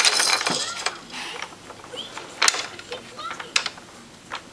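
Plastic toys on an Evenflo baby activity center being handled: a clattering rattle of beads and spinner parts in the first second, then several sharp separate clicks.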